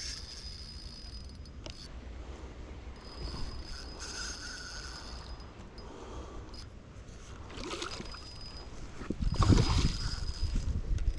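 Water splashing and sloshing as a hooked hybrid striped bass is fought at the boat, with the loudest splashing about nine to ten seconds in.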